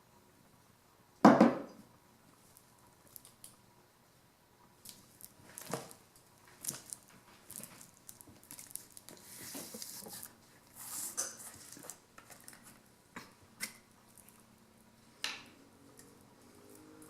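Kitchen handling clatter: a loud knock about a second in, then scattered clicks, taps and short scraping rustles, as utensils and a foil-lined baking sheet of chicken wings are handled.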